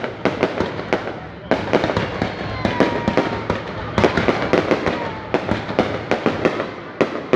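Fireworks display going off: a dense, rapid series of sharp bangs and crackling bursts, with a few faint whistles gliding in pitch between them.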